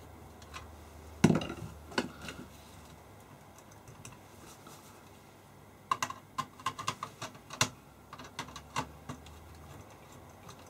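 Nut driver clicking and ticking on the hex nuts of an IEEE-488 connector on a metal instrument back panel as they are undone: one sharp click about a second in, then a run of small quick irregular clicks in the second half.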